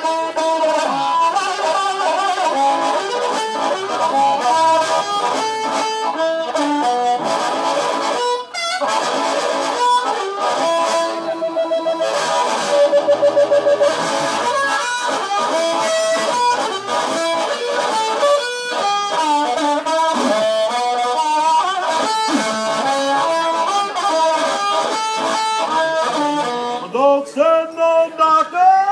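Harmonica played through a handheld microphone into a small amplifier: a continuous melody of changing notes, with a fast even warble about halfway through and short choppy pulses near the end.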